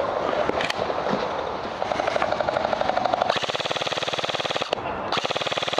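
Airsoft gun firing on full auto: rapid, evenly spaced shots in long bursts, starting about two seconds in, with a short break near the five-second mark before another burst.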